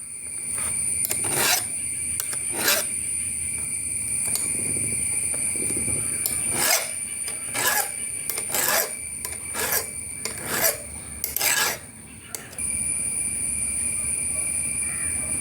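Round file rasping across the cutter teeth of a chainsaw chain, sharpened by hand in a filing guide, in separate strokes, about one a second in the second half.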